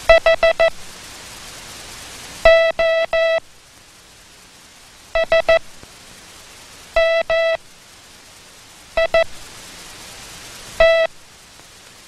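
Morse code sent as a single steady buzzy tone, in separate letters each made only of dits or only of dahs. In turn it sends four dits (H), three dahs (O), three dits (S), two dahs (M), two dits (I) and one dah (T), with a pause of about a second or more between letters.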